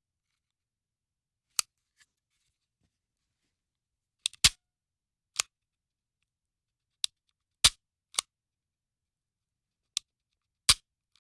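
Handgun dry firing: the trigger is pulled on an empty gun, and the firing mechanism snaps with a sharp metallic click each time. There are about ten clicks at uneven intervals, a second or more apart, some in close pairs, with silence between them.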